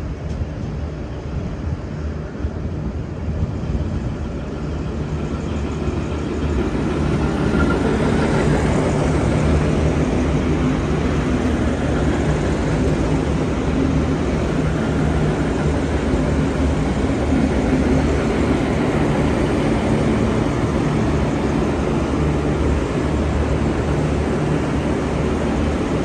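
V/Line VLocity diesel multiple unit drawing in alongside the platform, the steady low drone of its underfloor diesel engines growing louder over the first several seconds as it nears, then holding.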